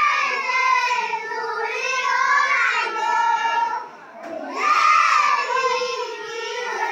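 A class of young children singing a song together in unison, with a short break about four seconds in before they carry on.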